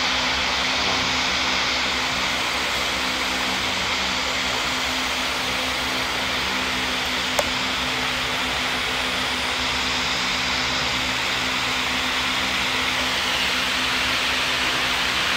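Large wall-mounted electric fan running steadily: a constant rush of air with a low motor hum. A single brief click sounds about seven seconds in.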